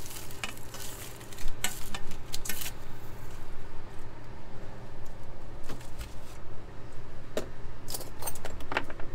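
Metal fork clinking and scraping as fries are pushed off a foil-lined pan onto plates: a string of sharp clicks, busiest in the first few seconds and again near the end, over a steady low hum.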